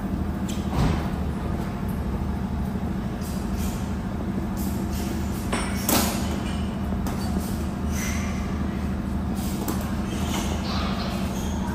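Heavy-equipment engine running steadily, with a sharp knock just under a second in and another about halfway through.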